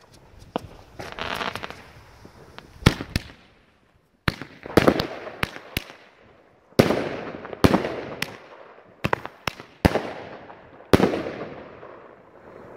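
Consumer fireworks battery firing: about a dozen sharp bangs, irregularly spaced, each trailing off in a fading hiss and crackle as the shots rise and burst. A brief near-silence about four seconds in breaks the run.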